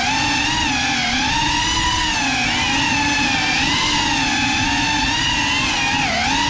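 GEPRC CineLog35 cinewhoop's brushless motors and ducted propellers whining close to the onboard GoPro, the pitch rising and falling with the throttle and dipping sharply near the end.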